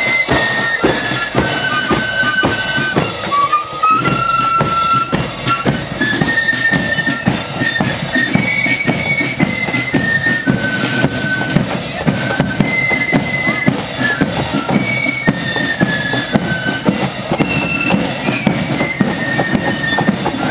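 Marching flute band playing a march tune on flutes, with regular drum beats underneath.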